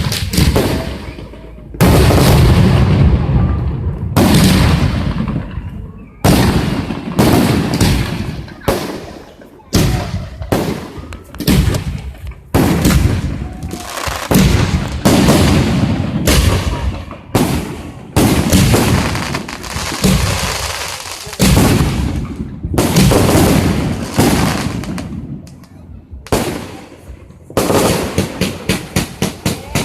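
Fireworks going off one after another: repeated loud bangs, each trailing off in a crackling tail. Near the end comes a fast string of sharp pops, several a second.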